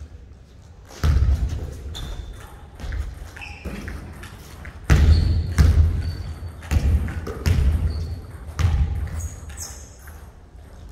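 Basketball bouncing on a hardwood gym floor: several heavy, dull thuds at irregular intervals, ringing in a large echoing hall, with a few short high squeaks between them.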